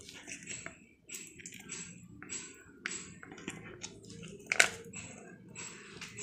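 Plastic pouch crinkling and rustling in quick irregular crackles as it is squeezed by hand to push out mixed pickle, with one sharp tap about four and a half seconds in.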